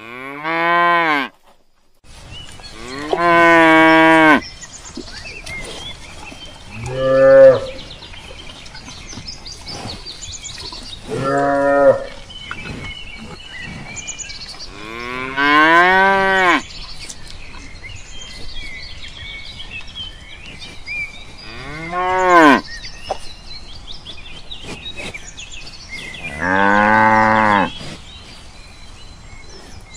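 Cows mooing: about seven separate drawn-out moos, each lasting a second or two, several rising and then falling in pitch. The first moo breaks off abruptly about a second in.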